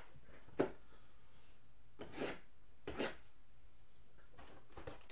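A cardboard hobby box of Onyx Vintage football cards being handled and set down flat on a table mat. A sharp knock comes about half a second in, then two short scraping rubs of cardboard around two and three seconds in, and a few faint ticks near the end.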